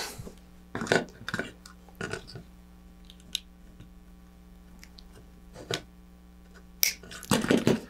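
Pliers snapping off small plastic pieces: a scattered series of short, sharp clicks and snaps with some handling noise, busier near the end, over a faint steady electrical hum.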